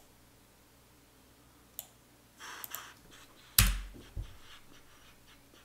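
Computer mouse clicking a few times, with a short rustling noise, then a heavy thump with a deep boom about three and a half seconds in and a lighter knock just after.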